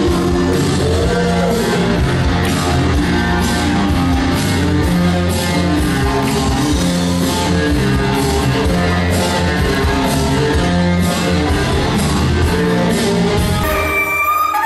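Loud dance music with a steady beat, switching abruptly to a different piece near the end.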